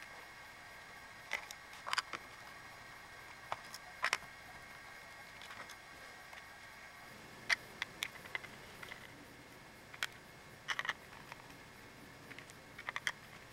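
Irregular light clicks and taps of a screwdriver working small screws out of a plastic battery charger case and its circuit board, with the plastic housing being handled and opened.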